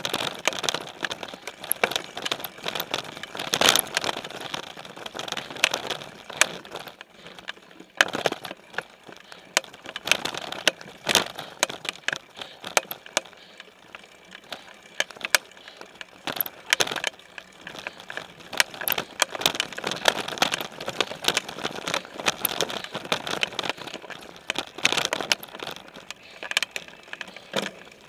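Specialized Stumpjumper mountain bike rolling over a rough dirt, gravel and leaf-strewn trail, picked up through its frame-mounted camera: constant irregular rattling and sharp metallic clicks with tyre crunch.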